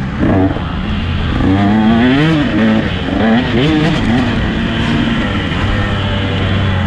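KTM 125 SX two-stroke single-cylinder dirt-bike engine under riding load, revving up and dropping back several times, then holding a steadier pitch over the last couple of seconds.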